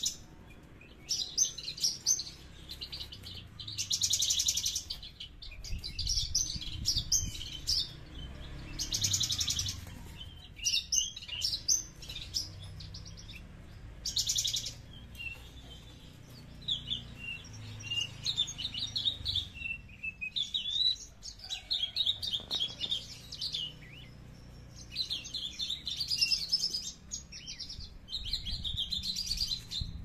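Caged Javan bush lark (branjangan) singing in bursts of a few seconds: rapid buzzy trills mixed with quick, varied high chirps, broken by short pauses.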